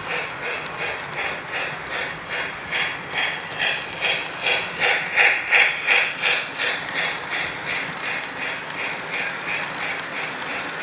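Model train running past on its track with a quick, even rhythmic clicking beat, loudest about halfway through as the locomotive and first cars pass close by.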